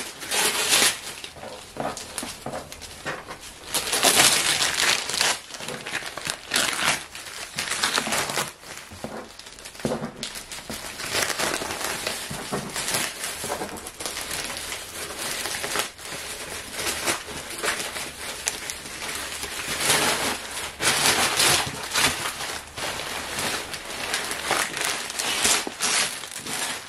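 Plastic wrapping crinkling and tearing as it is pulled off a cardboard box, in irregular rustling bursts, loudest about four seconds in and again around twenty seconds.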